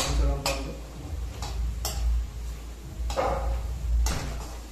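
Metal spoon clinking and scraping against the side of a metal cooking pot as the food is stirred: a string of sharp clinks at uneven intervals, with a longer scrape about three seconds in, over a steady low hum.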